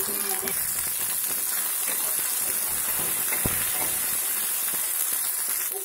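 Sliced onions frying in hot oil in a kadai: a steady sizzle, with a single light knock a little past halfway.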